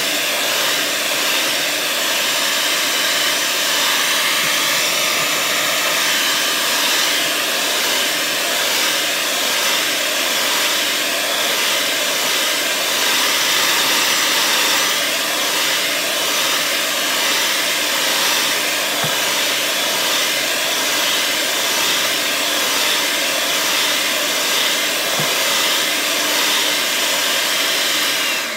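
Electric mixer running steadily at speed, whisking heavy cream and sweetened condensed milk to thicken a no-churn ice cream base; it switches off at the very end.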